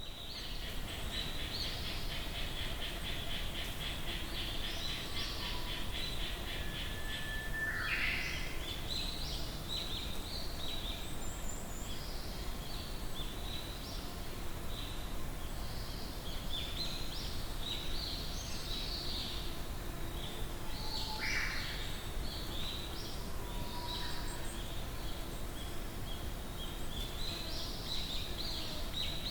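A busy chorus of several forest birds chirping and singing at once, over a steady low background rumble. A fast, even trill runs through the first eight seconds or so.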